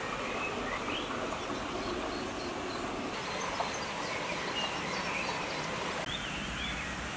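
Steady rush of flowing river water, with small birds chirping briefly and repeatedly over it.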